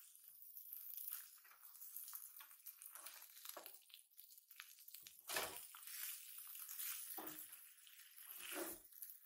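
Okonomiyaki frying on an electric griddle plate, a faint steady sizzle, with metal spatulas scraping and pressing against the plate. There are several short scrapes, the heaviest three in the second half.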